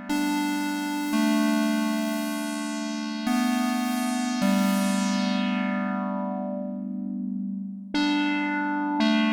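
Arturia MicroFreak synthesizer playing a slow line of sustained, bright notes, a new note every one to two seconds, each note's brightness fading as it holds; the sound dies down briefly about eight seconds in before the next notes.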